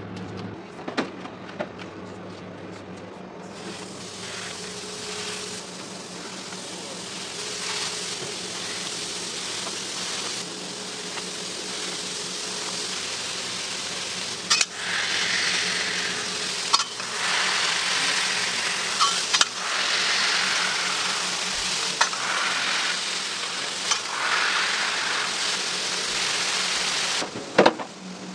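Ground beef sizzling on a hot flat-top griddle, an even hiss that builds over the first few seconds and grows louder about halfway through, with scattered sharp clicks of utensils over a steady low hum.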